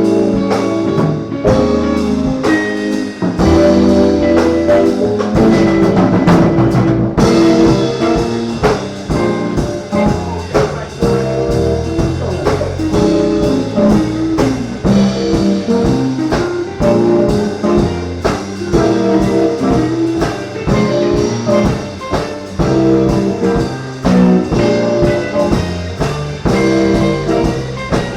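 Live band playing a jazz tune, with horns carrying the melody over drum kit and bass. About seven seconds in, the drumming picks up into a steady beat of dense cymbal and snare strokes.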